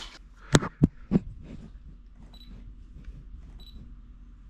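DSLR camera being handled and fired: three sharp clicks within the first second or so, then two short high beeps about a second apart.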